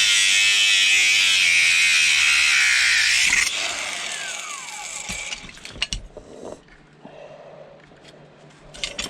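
Angle grinder cutting into a metal casting, running steadily at full speed for about three seconds, then switched off and whining down as the disc spins to a stop. A few light clicks and knocks follow as the part is handled.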